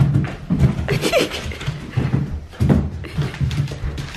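Chocolate Labrador puppy making growling play noises in repeated short bursts.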